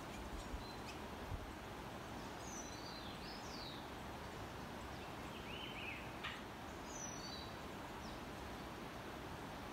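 Steady outdoor background hiss with short bird calls, several quick chirps and gliding notes, starting about two and a half seconds in and again around the middle.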